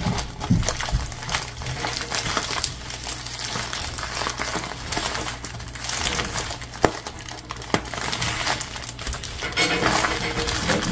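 Black plastic bubble mailer being pulled and torn open by hand: irregular crinkling and crackling of the plastic with scattered sharp clicks.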